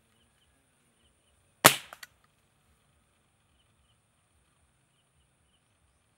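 A tranquilliser dart gun fired once: a single sharp crack about a second and a half in, with two smaller clicks right after it, as the sedative dart goes out at the elephant.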